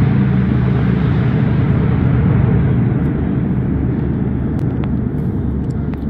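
A deep rumble echoing up a mine shaft, fading slowly, with a few faint clicks near the end.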